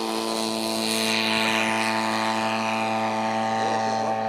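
Radio-controlled model tow plane's piston engine and propeller running at full throttle with a steady pitch, pulling a model glider up on tow.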